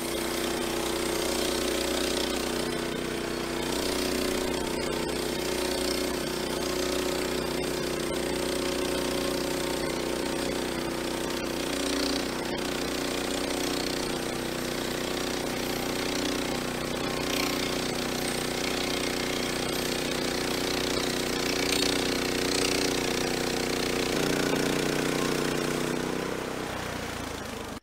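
Sawmill engine running steadily under load, with the blade cutting a log, until it cuts off abruptly near the end.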